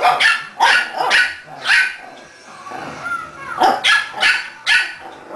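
Puppy barking in short, sharp yaps about half a second apart: four barks, a pause of nearly two seconds, then four more.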